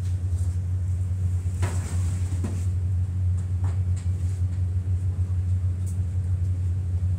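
Steady low drone of an idling truck engine, unchanging throughout, with a few faint brief voices and knocks about two and four seconds in.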